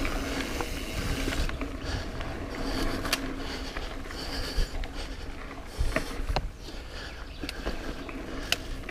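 Mountain bike rolling over a dirt trail: tyre noise and a steady rumble, with the bike rattling and a few sharp knocks as it goes over roots and rocks.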